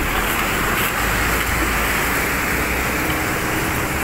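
Small waterfall on a mountain stream, white water rushing and splashing over boulders: a loud, steady rush.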